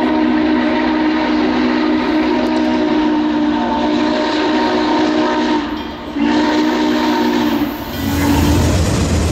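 Norfolk & Western 611 class J steam locomotive blowing its steam whistle, several notes sounding together: a long blast breaks off about six seconds in, a second long blast follows, then a short one. Near the end a heavy low rumble from the passing locomotive and train grows loud.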